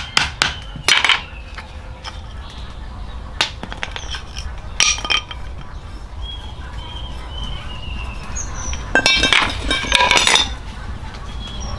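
A few sharp hammer knocks in the first second as a wooden plug is driven into the socket of an iron hoe head. Then a quieter stretch with a bird whistling faintly in the background. Near the end comes a loud cluster of ringing metal clinks and knocks as the iron head is handled and set down on concrete.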